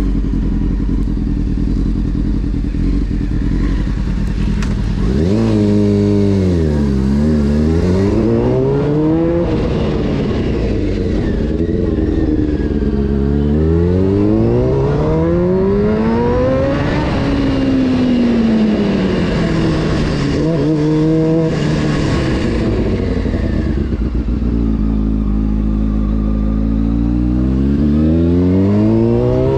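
Honda CBR600 F4's inline-four engine while riding: steady at first, then about five seconds in it revs up and falls back several times as the bike accelerates and shifts. A quick short blip comes around twenty seconds in, then it settles low and starts climbing again near the end.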